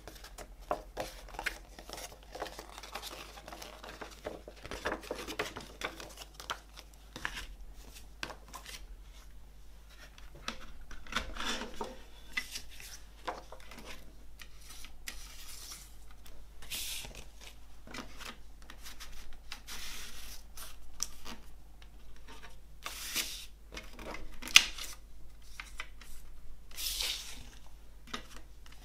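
Large folded paper insert rustling and crinkling as it is handled and refolded, with light clicks and taps of a plastic CD jewel case. One sharp click toward the end is the loudest sound.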